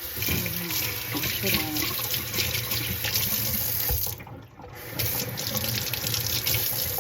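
Water running from a tap into a sink as a flea comb is rinsed under it. The flow breaks off for about a second just after four seconds in, then runs again.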